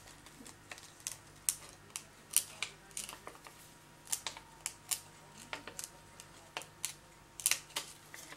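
Small craft scissors snipping through acetate sheet, cutting closely around heat-embossed leaf shapes: a run of short, sharp snips at uneven intervals, about two a second.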